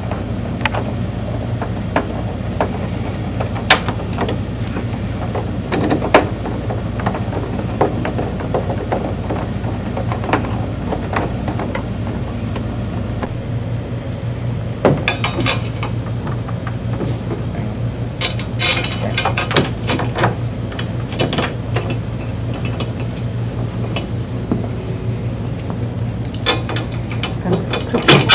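Scattered clicks and knocks of a metal mount bracket and screws being handled and fitted on the plastic back of a flat-panel TV, with two busier runs of clicking about midway, over a steady low hum.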